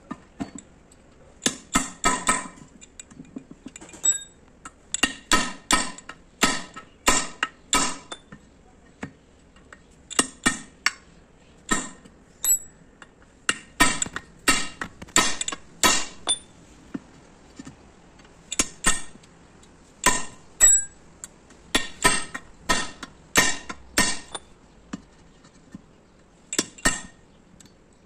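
Hammer blows on a steel punch driving out the rivets of the old lining on an Ashok Leyland bus brake shoe, with a metallic ring. The strikes come in quick runs of a few blows, about two to three a second, with short pauses between runs.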